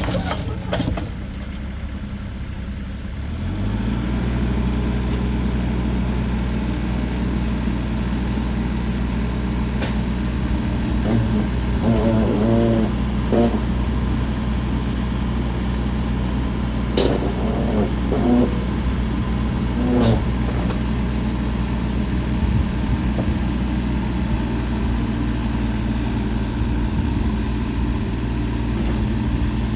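Kubota RX-406E mini excavator's diesel engine running; about three seconds in its speed rises, then it runs steadily. A few sharp knocks and short wavering tones come around the middle.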